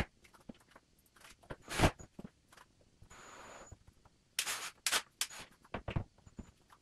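Scattered knocks, taps and scrapes of hands-on cabinet installation work, with tools and cabinet parts being handled and set down. The sharpest knock comes a little under two seconds in, and a short scraping noise about three seconds in.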